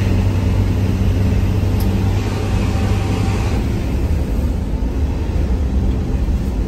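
Bus on the move, its engine running as a steady low rumble with road noise.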